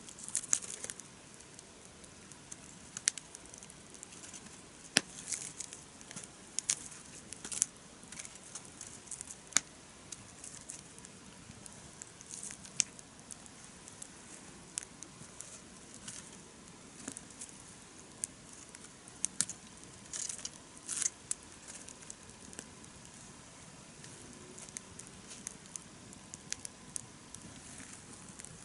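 Wood campfire crackling, with irregular sharp pops and snaps over a low steady hiss.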